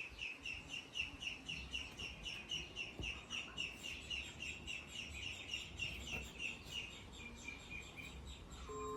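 A quick, even series of bird-like chirps, about four a second, growing fainter near the end.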